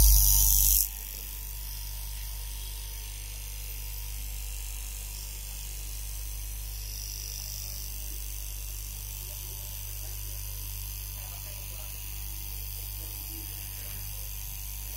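Electric straight-knife cloth cutting machine running with a steady low hum as its upright reciprocating blade cuts through a stack of polo t-shirt fabric. A loud, brief noise fills the first second before the steady hum.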